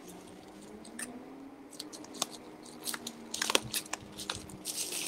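Scissors snipping open a plastic bag, with scattered short clicks and crinkles of the plastic.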